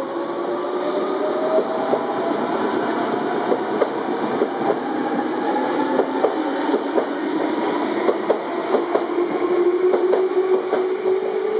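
Meitetsu red electric train passing through the station at speed without stopping. Its traction motors whine in several tones that slowly shift in pitch, over a run of clacks from the wheels crossing rail joints.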